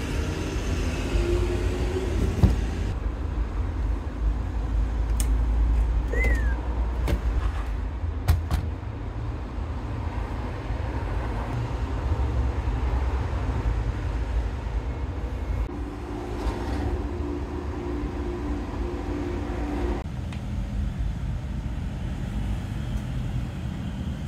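Steady low rumble of road traffic, with a few sharp clicks and taps.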